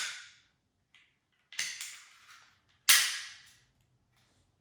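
Sharp metallic clacks of a Glock 45 pistol being field stripped by hand, each dying away within about half a second. There is one at the start, a faint tick about a second in, a pair about one and a half seconds in, and the loudest near three seconds.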